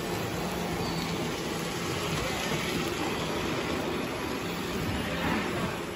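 Model train running on a layout: the locomotive's motor and wheels give a steady running noise with a faint hum. It starts to fade out at the very end.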